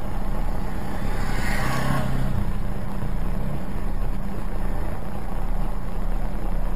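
Car engine running steadily at idle, a low hum as heard from inside a dashcam car, with a brief louder swell of noise about one to two seconds in.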